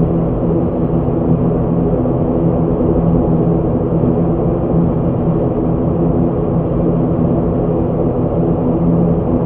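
ATR 72-600's twin turboprop engines and propellers droning steadily as the aircraft taxis, heard inside the cockpit. The sound is an even hum with a steady pitch over a low rumble.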